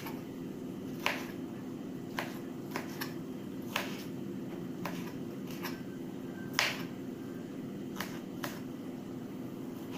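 Knife chopping tomato on a plastic cutting board: irregular sharp taps of the blade hitting the board, roughly one a second, over a steady low hum.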